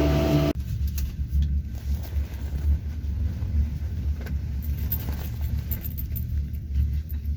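Low, steady rumble with light rattles and clicks from a moving vehicle. A short pitched hum cuts off about half a second in.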